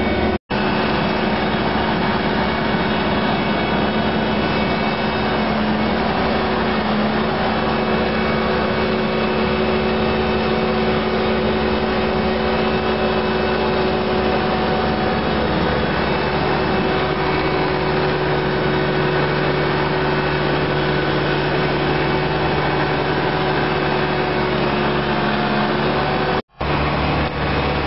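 Heavy diesel engines running steadily as a Cat AP555E tracked asphalt paver and a dump truck crawl slowly over gravel. The engine note shifts a little about halfway through, and the sound cuts out briefly twice, just after the start and near the end.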